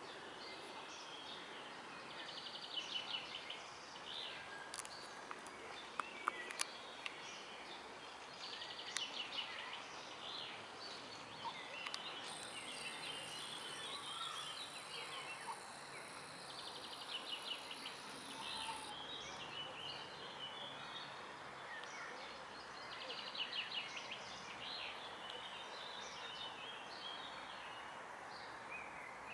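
Songbirds singing over a steady background hush. One bird repeats a short trilled phrase about every six to eight seconds, with scattered chirps between.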